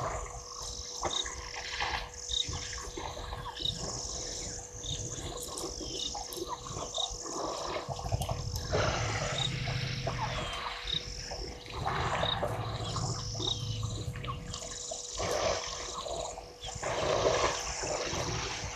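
African elephant herd drinking at a waterhole: water splashing and sloshing under trunks, and two low rumbles of a couple of seconds each around the middle. A bird repeats a short high chirp about once a second over it.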